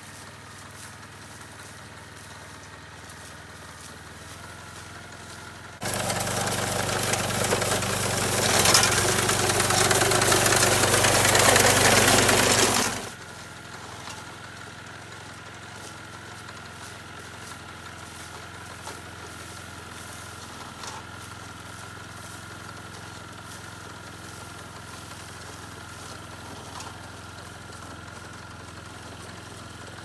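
Small engine of a walk-behind rice binder running steadily as a low hum. About six seconds in, a loud rushing noise starts suddenly, lasts about seven seconds and cuts off just as suddenly.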